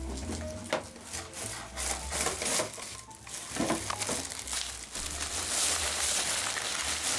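Clear plastic packaging bag crinkling and the folded nylon fabric of an inflatable snowman rustling as they are handled and pulled apart, with irregular rustles that grow denser and louder near the end.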